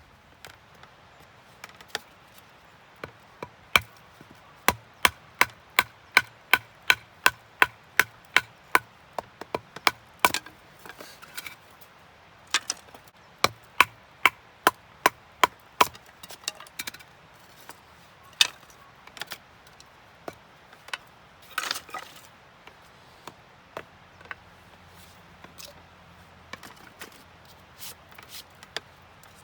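Firewood being chopped or split with a hand tool: sharp wooden strikes about two a second, in runs with pauses between them.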